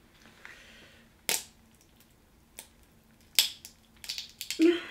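A cooked crab leg's shell is cracked apart by hand. Single sharp cracks come spread out, then a quick run of crunching cracks near the end, followed by a short strained grunt of effort.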